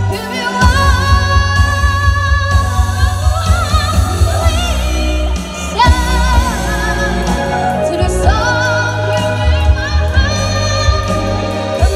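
A boy singing into a microphone through a PA, holding long notes with vibrato, over electronic keyboard accompaniment with a steady beat.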